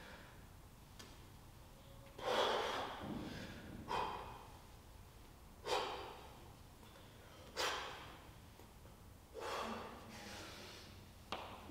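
A man's forceful exhales through the nose and mouth during dumbbell swings, one sharp breath about every two seconds in time with each swing.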